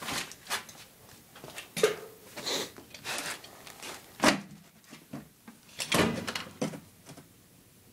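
A string of irregular knocks and clunks with rustling, about nine in all; the sharpest come about four seconds in and about six seconds in.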